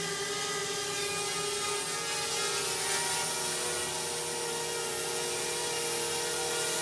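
Original Parrot Bebop quadcopter in flight, its electric motors and propellers giving a steady, many-toned buzzing whine.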